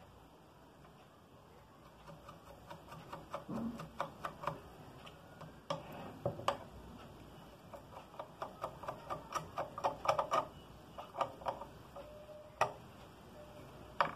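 Irregular small metal clicks and ticks of a screwdriver working the screws and nuts of a sewing machine's round hook plate, with metal parts clinking as it is seated and tightened. The clicks start about two seconds in.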